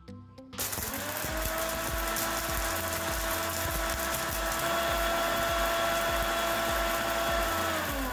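Orpat 1200 W mixer grinder switched on about half a second in, spinning up and running at a steady high speed with a whine as it grinds whole garam masala spices in its steel jar. It is switched off near the end, and the whine falls in pitch as the motor winds down.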